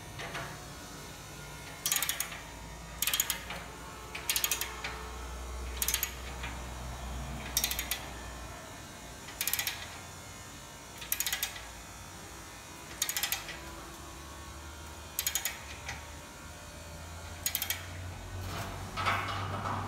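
Hand socket ratchet clicking in short bursts, about a dozen of them, one every second and a half to two seconds, as the handle is swung back and forth to tighten a bolt on a steel stump-top bracket.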